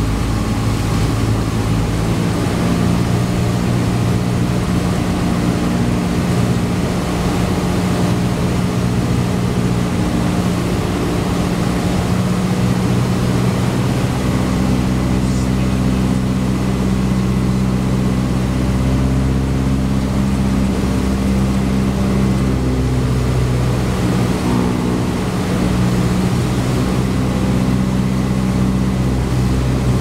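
A Cessna 172's piston engine and propeller drone steadily, heard from inside the cockpit on approach to land. The engine note shifts a little around the middle and again later.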